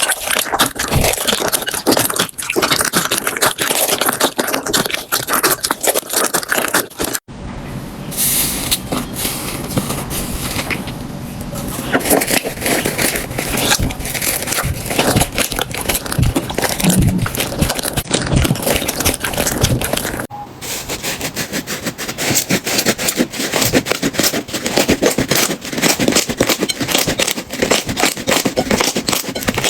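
Slime being handled, with dense crackling, clicking and scraping. The sound changes abruptly twice, about 7 and 20 seconds in, as one slime clip gives way to the next.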